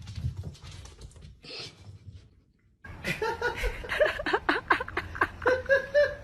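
A person laughing hard in quick, repeated bursts from about three seconds in, after a fainter stretch of irregular noise.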